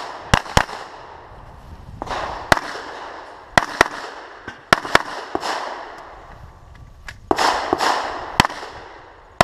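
Glock 34 9mm pistol shots, several fired in quick pairs about a quarter second apart, with pauses of one to three seconds between strings. A rushing noise rises and falls between some of the strings.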